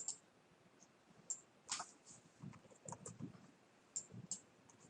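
Faint, irregular clicks from a computer mouse and keyboard as software settings are entered, with a few soft low knocks.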